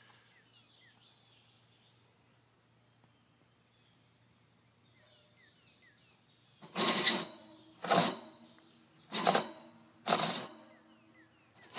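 A faint steady high insect trill, then, from about two-thirds of the way in, four loud short scraping strokes about a second apart: metal parts being worked as the HVAC indoor blower assembly is removed.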